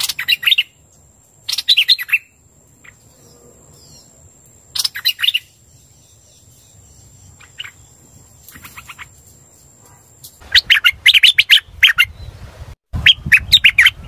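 Hoành hoạch bird singing, a recorded lure call for trapping: short chattering phrases of quick notes, each about half a second, with gaps between them, then a longer, busier run of phrases near the end.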